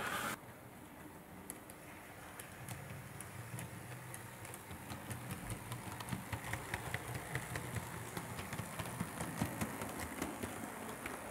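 HO scale model train, a V 200 diesel locomotive hauling passenger coaches, running along the track: a low steady hum with a patter of small clicks from wheels over the rail joints, growing louder as it approaches.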